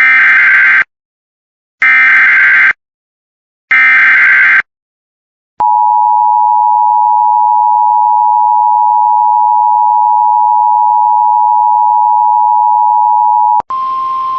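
Emergency Alert System tones announcing a Special Marine Warning: three short bursts of screeching SAME digital header data about a second apart, then the EAS two-tone attention signal held steady for about eight seconds. Just before the end a single, slightly higher tone over hiss begins.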